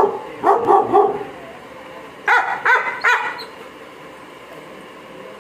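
A dog barking: a quick run of three barks about half a second in, and three more about two seconds later.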